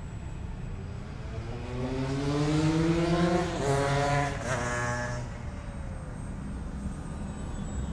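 Electric-powered Ugly Stick RC model airplane flying past: the whine of its motor and propeller rises in pitch and loudness over a couple of seconds, then drops sharply in pitch about three and a half seconds in and fades away.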